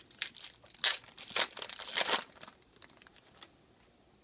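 Foil trading-card pack wrapper being crinkled and torn open: a burst of crackling and tearing over about two seconds, then a few light ticks.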